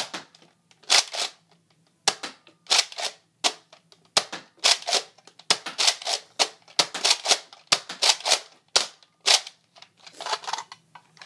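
Nerf Modulus Recon MK II spring-powered blaster being slide-primed and fired again and again: an uneven run of sharp plastic clacks and pops, one to two a second.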